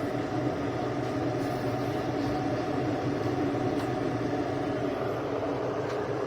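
AZEUS 1.8 L electric kettle heating water toward the boil: a steady, even rumble with no change in level.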